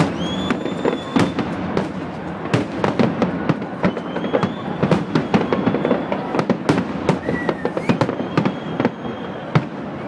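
Fireworks display: rapid, overlapping bangs and crackles with no let-up, and a few thin high whistles heard now and then.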